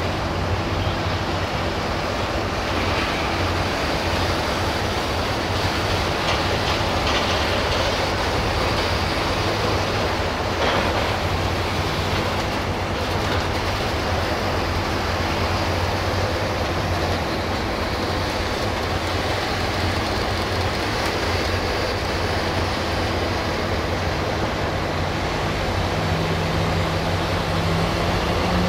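Steam locomotives 142.044 and 230.142 and a tender rolling slowly over the rails, hauled in shunting by an LDH diesel-hydraulic shunter whose engine runs steadily underneath. The engine note rises near the end.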